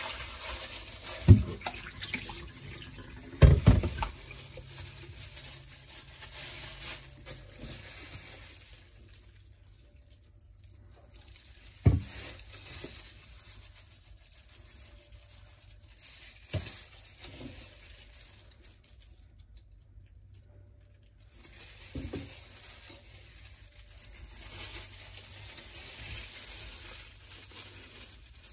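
Water splashing in a glass bowl in a stainless steel sink as gloved hands rinse raw chicken, with a few sharp knocks, the loudest in the first few seconds. It then goes quieter with scattered knocks, and near the end plastic gloves crinkle as the chicken is rubbed with lemon halves.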